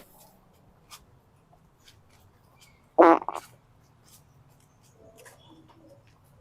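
A loud fart sound, one short pitched blast about three seconds in followed at once by a brief second burst.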